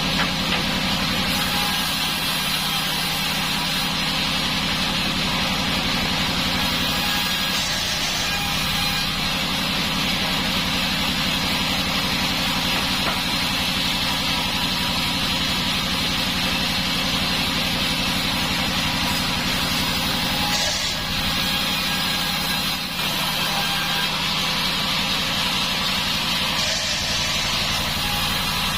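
Sawmill band saw running steadily: a low, even machine hum under a constant hiss.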